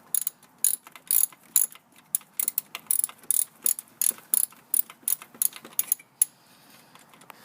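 Ratchet wrench with a 14 mm socket on an extension bar clicking in quick strokes as a starter mounting bolt is worked loose; the clicking stops about six seconds in.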